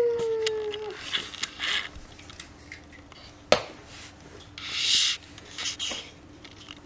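Toys being handled against a popsicle-stick wooden box: short rubbing and scraping sounds, a sharp click about three and a half seconds in, and a longer rasp near five seconds. It opens with a held tone that slowly falls in pitch and stops about a second in.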